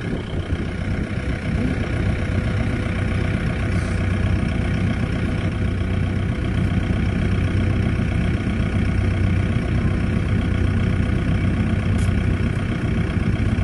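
Ice cream van's engine idling steadily with an even low hum.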